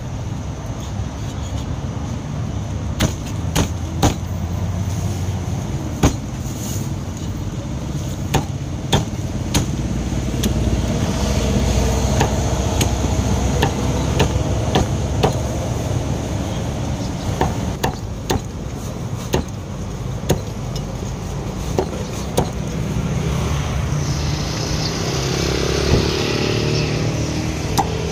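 Meat cleaver chopping through roast duck on a thick wooden chopping block: sharp knocks at irregular intervals, roughly one every second or two. Under them runs a steady low rumble of road traffic.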